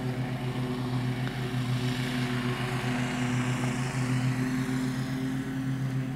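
Steady low mechanical hum of a small motor, with a hiss above it that swells in the middle and eases off.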